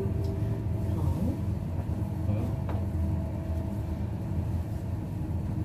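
Steady low rumble and hum of a passenger lift car travelling between floors, heard from inside the car.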